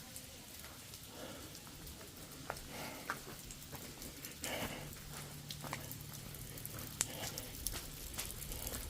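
Water dripping off a rock ledge at a waterfall: scattered, irregular drops pattering over a faint steady wash of falling water.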